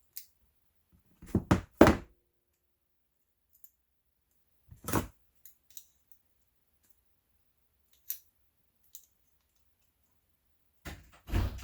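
Scattered knocks and clicks from tools and tool-belt hardware being handled: three quick knocks about a second in, another a few seconds later, light clicks around eight seconds, and a couple more knocks near the end.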